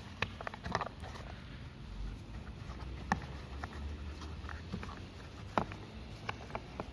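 A microfibre cloth rubbing and wiping inside the black plastic air filter cover of a Makita EK7651H power cutter, with scattered light clicks and taps of the plastic as it is handled, a few sharper ones about three and five and a half seconds in.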